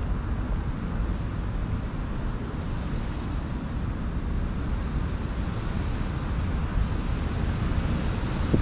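Wind buffeting the microphone, a steady low rumble with a light hiss over it.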